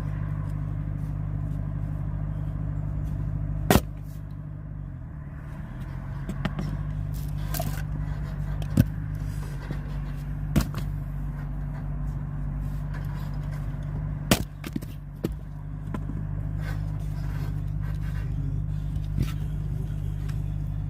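An engine running steadily while firewood is split, with several sharp cracks and knocks of wood. The loudest crack comes about four seconds in, and the engine note dips briefly after it and then recovers.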